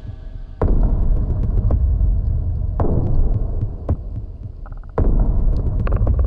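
Background music: a deep, throbbing electronic pulse over a low drone, with a heavy low hit about every two seconds.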